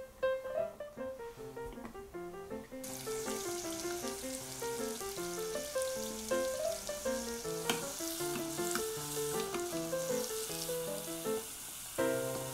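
Hot oil sizzling as miniature fries made from Poppin' Cookin' candy-kit potato dough deep-fry in a tiny saucepan. The sizzle starts suddenly about three seconds in, under light background music with plucked, piano-like notes.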